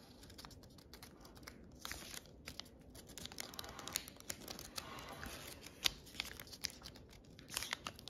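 Origami paper crinkling and rustling in the fingers as it is folded and creased: scattered small crackles and ticks, with one sharper tick a little before the end.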